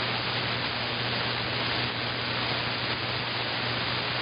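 AM radio receiver hissing steady static with a low hum on an open channel, no station coming back after the call.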